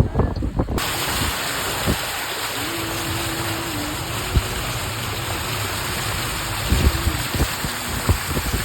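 Steady, even hiss of heavy rain, with gusts of wind on the microphone in the first second.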